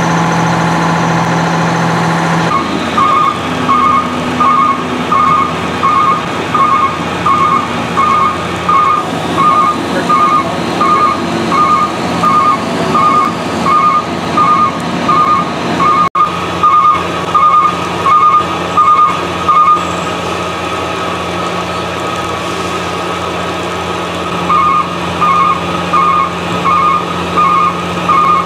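A truck's reversing alarm beeps over and over, about one and a half beeps a second, over the steady hum of a running engine. The beeping stops for a few seconds about twenty seconds in, then starts again. In the first couple of seconds only a steady engine drone is heard.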